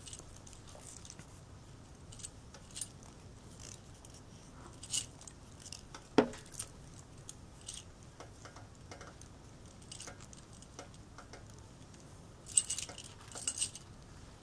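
Stacked bangles on both wrists clinking lightly now and then as the hands move while hand-sewing, with a brief flurry of jingling near the end.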